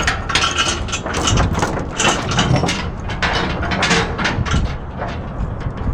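Mini excavator being driven onto a trailer: irregular metallic clanking and rattling from its tracks and undercarriage over the steady low running of its engine.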